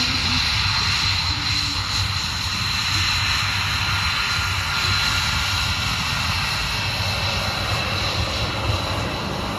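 An airplane's engines running steadily: a broad, even rush of noise with a steady high whine on top.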